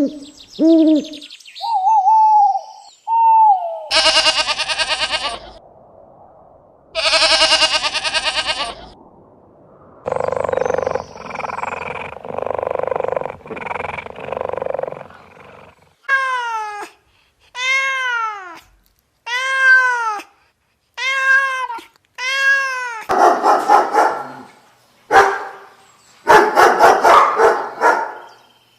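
A run of different animal calls one after another: two long noisy cries, a lower drawn-out call, five arched calls that fall in pitch, then dog barking near the end.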